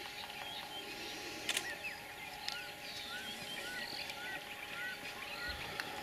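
Several birds calling and chirping, one repeating a short arched note about twice a second through the middle. A sharp click about one and a half seconds in is the loudest sound, with a smaller click near the end.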